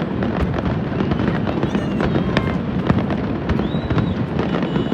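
Fireworks display: a dense, irregular run of sharp cracks and pops over a continuous low rumble, with faint whistles now and then.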